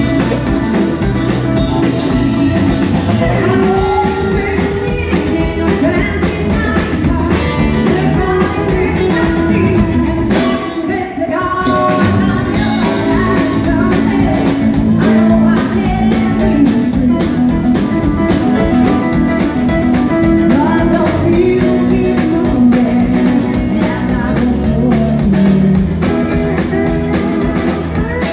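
Live country band music with a woman singing into a microphone over a drum kit and guitar.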